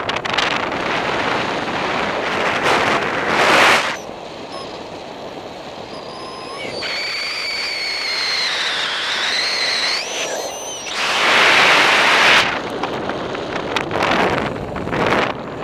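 Wind rushing over the camera's microphone in paraglider flight, gusting loudest about three seconds in and again around eleven to twelve seconds. In the quieter stretch between the gusts a thin whistling tone with a few overtones dips and then rises.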